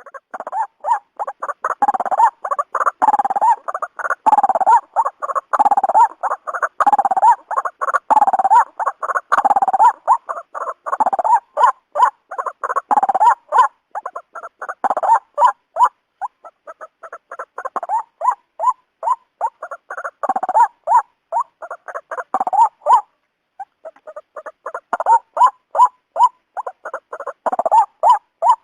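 White-breasted waterhen calling: a loud 'ruak-ruak' repeated over and over in rapid pulses, with a short break about two-thirds of the way through.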